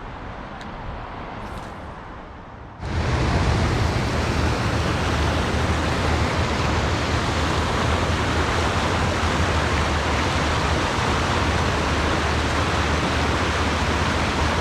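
Rushing water of a brook running over rocks, a steady even rush with a low rumble. It is quiet at first and jumps abruptly much louder about three seconds in.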